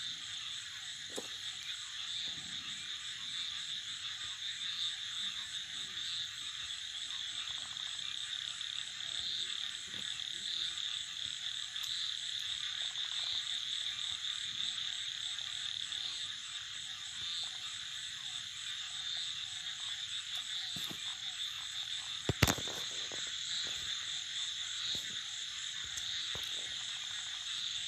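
A steady, high-pitched chorus of calling night animals, likely frogs, with a faint pulse about once a second. A single sharp click sounds about 22 seconds in.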